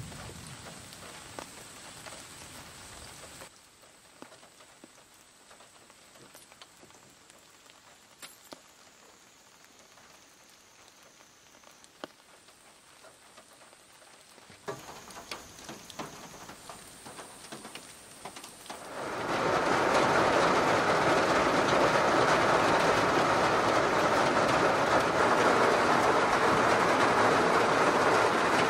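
Rain falling, quieter for the first part with scattered drips. About two-thirds of the way in it becomes a loud, dense, even drumming of heavy rain on the roof of the kei van, heard from inside the cabin.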